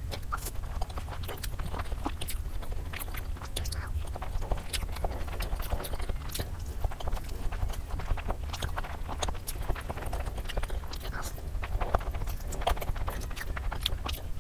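Close-miked eating of Korean instant noodles: chewing and slurping, with many wet mouth clicks and smacks coming irregularly.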